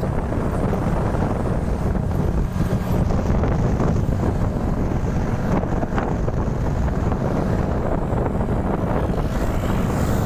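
Wind buffeting the microphone, a steady heavy rumble, from a moving vehicle on the road.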